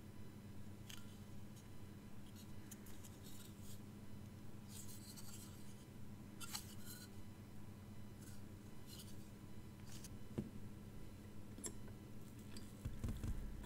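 Faint scratching and light clicks of metal multimeter probe tips scraping over the pins and pads of a soldered edge-connector breakout board as its joints are checked for continuity, over a steady low hum.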